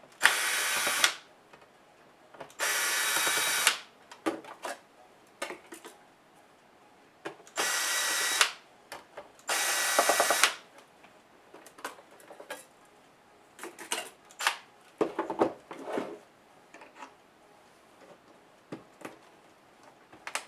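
Cordless drill-driver spinning in four short bursts of about a second each, backing screws out of a laptop's bottom access covers. After these come light scattered clicks and taps as the loosened cover panels are handled and lifted off.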